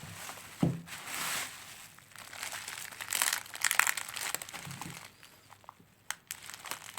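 Plastic bag packaging crinkling and rustling in irregular handfuls, with a few short sharp clicks near the end, as the parcel of silver coins is opened.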